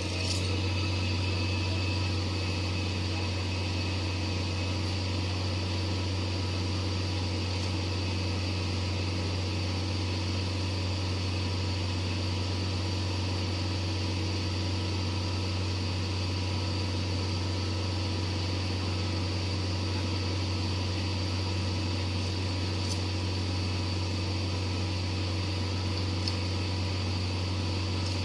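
Excavator engine running steadily: a constant low drone with a few steady tones above it, with no change in speed.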